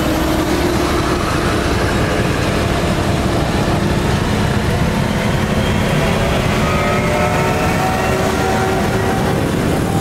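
Heavy harvest machinery running steadily: a large diesel engine with faint whining tones that drift slightly in pitch.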